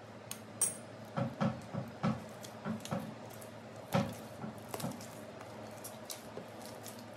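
A metal spoon clinks twice near the start, then hands knead soft parotta dough on the counter: a run of dull slaps and squishes, with a heavier thump about four seconds in, fading to fewer and softer ones near the end.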